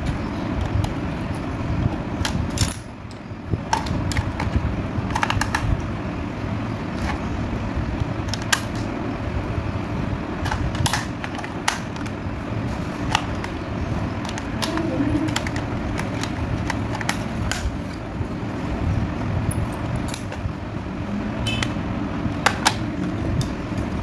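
Scattered sharp plastic clicks and taps as a toy helicopter's plastic remote control is handled and its battery compartment opened, over a steady low background hum.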